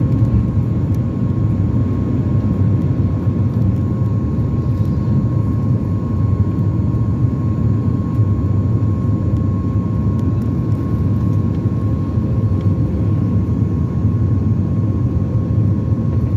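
Boeing 737 MAX's CFM LEAP-1B jet engines running at takeoff power: a steady low rumble with a constant whine over it.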